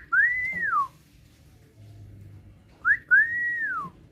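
Hill myna whistling twice, about three seconds apart: each call is a quick rising chirp followed by a longer clear whistle that holds high and then slides down in pitch.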